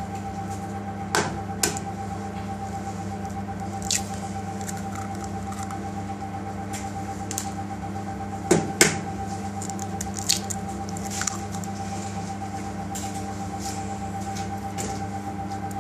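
Two eggs cracked on a stainless steel bowl and dropped in: a few short sharp taps, the loudest pair about nine seconds in. A steady machine hum runs underneath.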